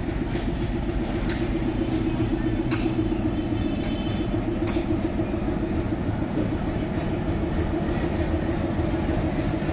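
Old diesel locomotive's engine running with a steady low throb as it pulls a train of coaches slowly toward the listener, with a few sharp clicks in the first five seconds.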